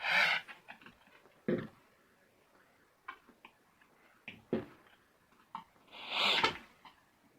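A few separate knocks and clatters from objects being handled, the loudest at the start and around six seconds in, with no steady hum.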